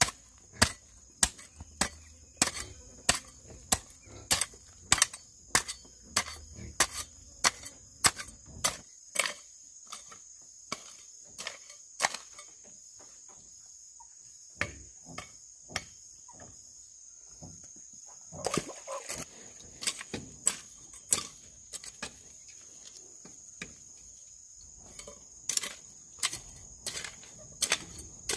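Hand hoe striking and chopping into loose, lumpy soil, about two blows a second at first, then more spread out. A steady high drone of insects runs underneath.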